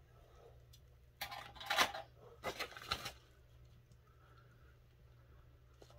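A pink foil mailer bag crinkling as it is handled and opened, in two short bursts, about a second in and again about two and a half seconds in.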